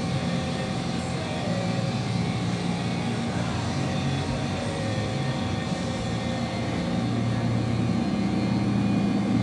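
A steady low rumble with a faint steady hum above it, holding at an even level throughout.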